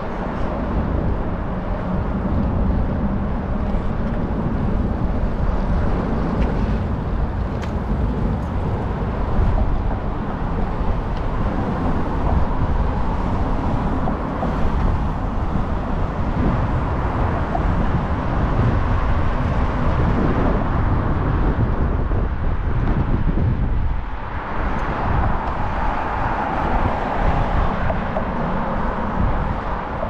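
Street noise of a city walk: steady road traffic rumble. Roughly four-fifths of the way through, the low rumble dips and a brighter hiss swells for a few seconds.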